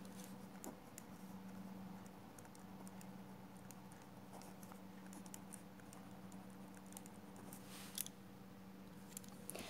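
Faint scratching and ticking of a ballpoint pen writing on lined notebook paper, over a low steady hum, with one slightly louder tick about eight seconds in.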